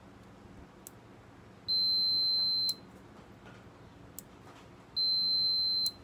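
Multimeter continuity buzzer beeping twice, a steady high beep of about a second each time, as the probes are held across a microwave oven door switch's terminals; the beep signals the switch contacts are closed and conducting. A faint small click comes shortly before each beep.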